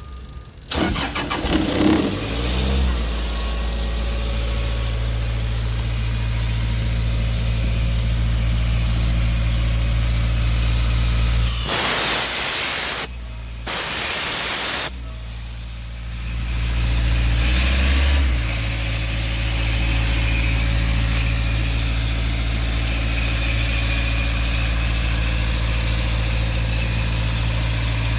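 Doosan portable air compressor's engine cranking, catching after about two seconds and settling into a steady idle. About twelve seconds in, a loud rushing noise lasts roughly three seconds with a short break, after which the engine is weaker for a few seconds before running steadily again.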